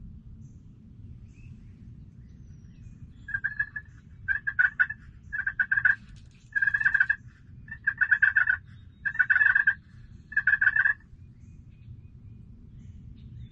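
Seven short, harsh calls about a second apart, blown on a hand-held hunting call to draw a turkey's gobble.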